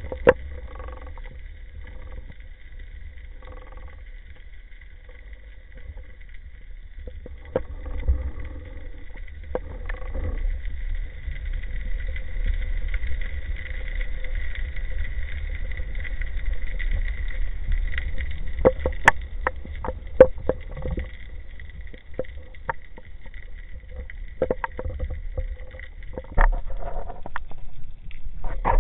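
Underwater ambience picked up through a camera housing: a steady low rumble with a faint steady whine over it, and scattered sharp clicks that bunch together in the second half.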